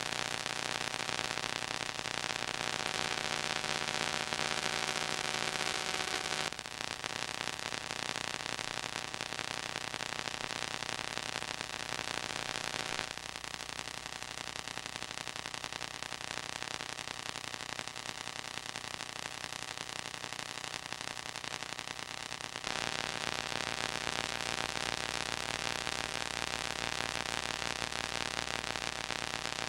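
Steady hiss with a faint hum, with no other sound: the noise floor of a silent home movie transferred to video. Its level and tone shift abruptly three times.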